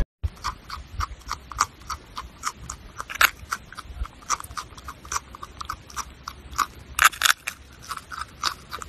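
A marmot chewing a piece of crisp food, a steady run of wet crunches about three a second with a few louder bites along the way.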